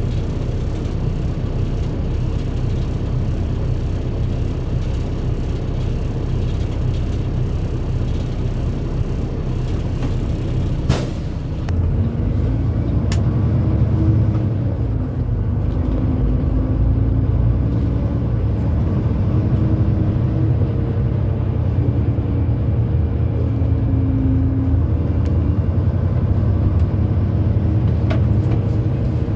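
Dump truck's engine running on the road with steady low rumble and road noise. About eleven seconds in there is a sharp click, after which the engine gets louder and its note rises and falls.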